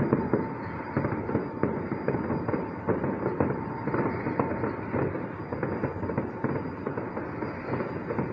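Fireworks display going off: a continuous run of many overlapping crackles and pops.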